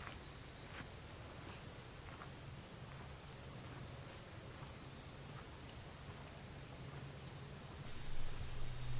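Steady, unbroken high-pitched drone of insects, typical of a cricket chorus in the woods. A few faint ticks come in the first few seconds, and a low hum with some louder noise starts near the end.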